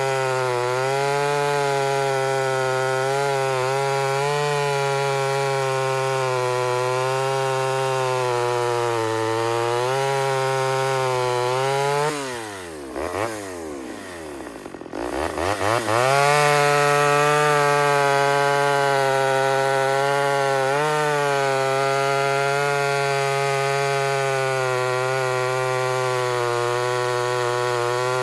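Ported Homelite Super XL Auto chainsaw's two-stroke engine at full throttle cutting wood, its pitch wavering slightly under load. About twelve seconds in the throttle is let off and the engine drops to idle for about three seconds, then revs back up and runs flat out again.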